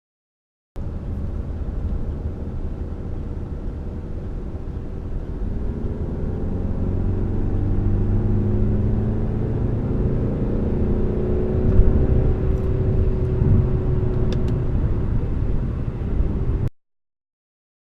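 Peugeot 508's 2.0 BlueHDi 180 four-cylinder turbodiesel accelerating hard. Its pitch rises and falls back several times as the EAT8 eight-speed automatic shifts up, and it grows louder as speed builds. The sound starts abruptly about a second in and cuts off sharply near the end.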